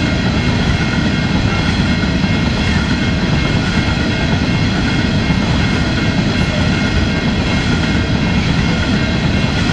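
Coal hopper wagons rolling past on the track: a loud, steady rumble of wheels and bogies on the rails, with thin steady high ringing tones over it.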